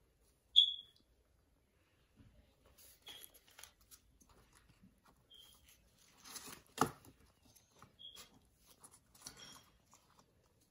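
Faint rustling and tapping of cardboard and thin wooden sticks being handled and pressed together, with a sharper knock about seven seconds in. A short high chirp about half a second in is the loudest sound, and a few fainter chirps like it recur.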